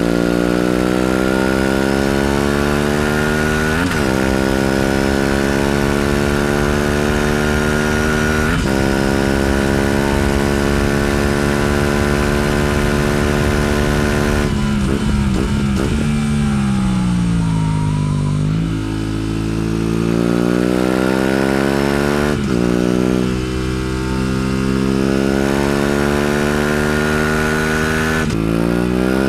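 Aprilia RS 457's parallel-twin engine at high revs under hard riding. The pitch climbs with two quick gear changes early on, then falls through blipped downshifts as the bike slows in the middle. It climbs again under acceleration and drops once more near the end.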